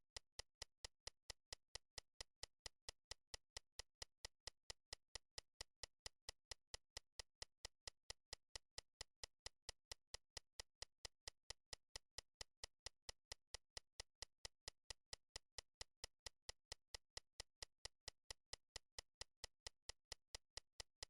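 Near silence with faint, evenly spaced ticks, about three a second.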